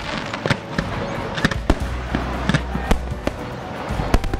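Aerial fireworks shells bursting overhead: a rapid, irregular series of sharp bangs and crackles, about two or three a second.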